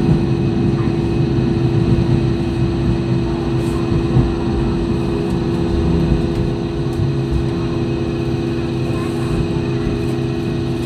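Train running along the track, heard from inside the carriage: a steady low rumble with a constant hum.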